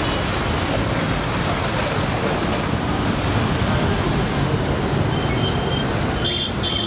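Hitachi hydraulic excavator's diesel engine running steadily, a continuous low rumble under broad noise, with a couple of short high squeaks near the end.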